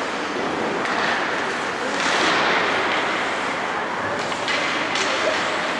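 Ice hockey play on a rink: skate blades scraping and carving the ice in a steady hiss, with a few sharp clacks from sticks and puck near the end.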